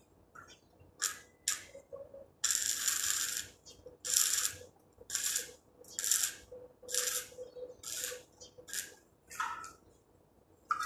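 A hand-held gun on a hose, worked against a steel frame in short bursts of hissing, about one a second, with one longer burst near the start.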